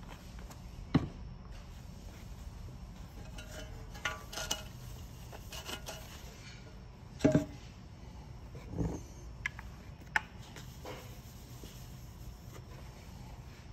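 Hands handling an aluminium battery mount plate: a few scattered light knocks and taps of metal being moved and set down, with soft rubbing as a paper towel wipes the metal with solvent to clean it for adhesive. The loudest knocks come a little past halfway.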